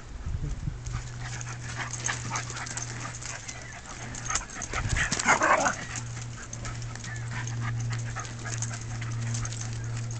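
Two dogs, a golden retriever puppy and a smaller dog, playing: scattered scuffling and paw sounds, with one louder dog vocal burst about halfway through. A steady low hum runs underneath.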